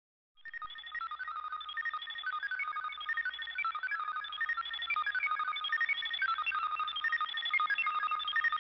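A tinny electronic melody of quick short high notes that sounds like a mobile-phone ringtone. It starts about half a second in.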